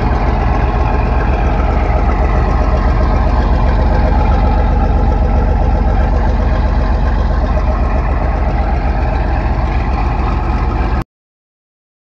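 John Deere tractor engine idling steadily through its vertical exhaust stack just after a cold morning start, the stack smoking. Cuts off suddenly near the end.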